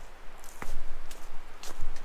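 Footsteps of a hiker walking on a rocky trail, a hard step or tap about twice a second.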